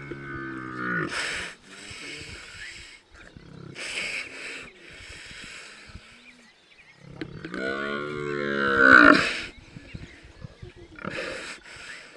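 Cape buffalo bellowing in distress as lionesses hold it down and bite it: a long, deep moaning call at the start and a louder one about seven seconds in, with short harsh noisy bursts between.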